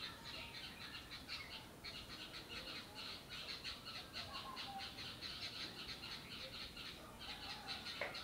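Faint garden birdsong: a fast, steady run of short high chirps, about five a second, with a few brief calls from other birds.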